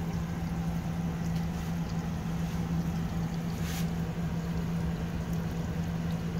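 Water pouring into the tub of a Magic Chef portable top-load washing machine as it fills through its inlet, with a steady low hum underneath.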